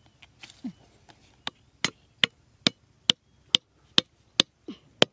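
A hammer striking the spine of a steel cleaver blade, driving it into the ground: a few light taps, then steady sharp blows about two a second, each with a brief metallic ring.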